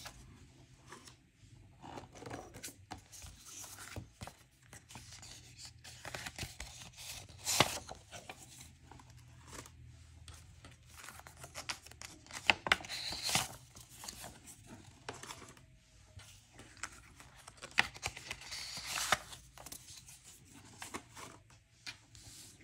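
Paper banknotes and paper envelopes being handled as cash is pulled out and counted: irregular rustling, crinkling and flicking of paper, with a few louder rustles.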